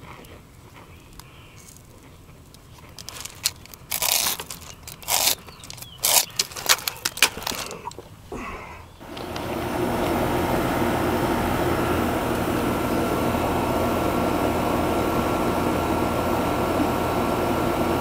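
A few irregular clicks and scrapes of handling, then about nine seconds in an air-conditioner condensing unit starts up and runs with a steady hum.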